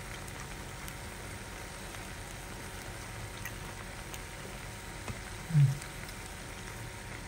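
Food cooking in a pan or pot on the stove: a steady, soft bubbling hiss. A brief low voice sound comes about five and a half seconds in.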